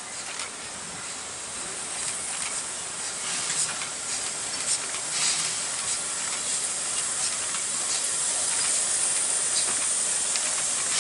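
Steam locomotive hissing steam, the hiss growing steadily louder, with a few light clicks scattered through it.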